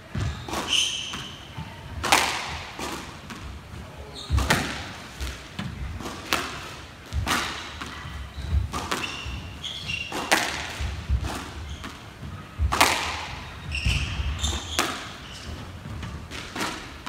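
Squash ball being hit back and forth in a rally: sharp racket strikes and ball smacks off the walls about every one to two seconds, ringing in the court, with short high squeaks of court shoes on the wooden floor between shots.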